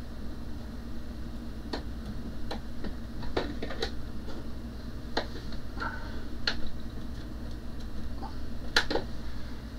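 Scattered light clicks and knocks of a plastic component-drawer cabinet being handled and fitted against a pegboard, the sharpest knock near the end, over a steady low hum.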